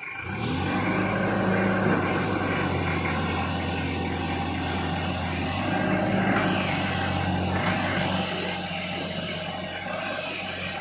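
Isuzu C240 four-cylinder diesel engine of a 3-ton forklift running steadily, louder from the very start.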